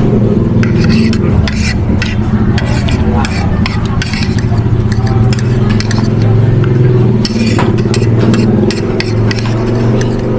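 Spoon scraping and clinking against a plate during eating, with many short clicks, over a steady low hum.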